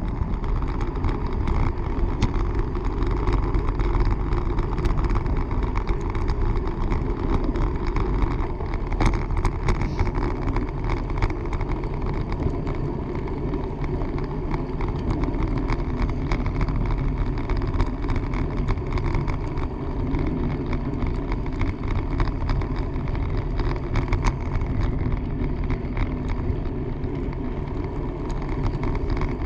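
Steady rushing noise of a bicycle ridden at speed: wind on the microphone and tyres rolling on pavement, with a few light clicks about nine to ten seconds in.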